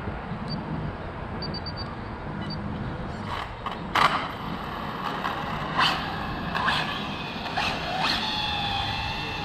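Arrma Felony RC car with twin electric motors driving on asphalt: several short, sharp bursts of noise from about three seconds in, then a steady, slightly falling high motor whine near the end.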